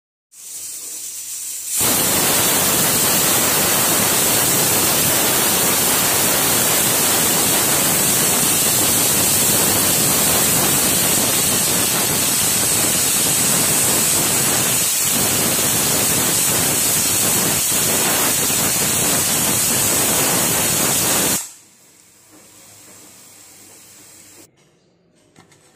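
Stovetop pressure cooker whistling: steam hisses out loudly and steadily past the weight on the lid as the cooker reaches pressure. The hiss builds about two seconds in, holds for about twenty seconds, then cuts off sharply, leaving a faint hiss for a few seconds.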